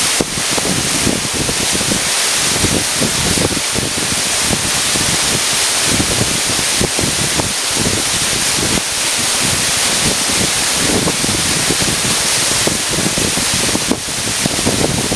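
Waterfall crashing steadily and loudly close by, with irregular low buffeting from wind and spray on the microphone.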